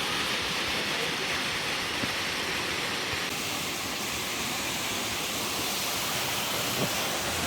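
A waterfall pouring steadily: a continuous rush of falling water, its tone shifting slightly about three seconds in.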